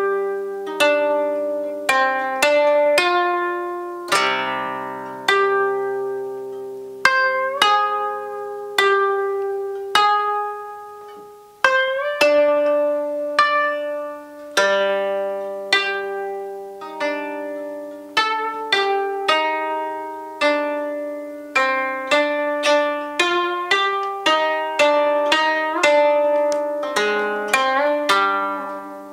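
Koto being plucked: single notes and small chords that ring and fade, some bent upward in pitch by pressing the string, quickening into faster runs in the last few seconds.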